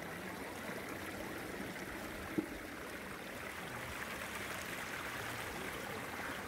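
Shallow stream water pouring steadily over a low rock ledge. A single short knock sounds about two and a half seconds in.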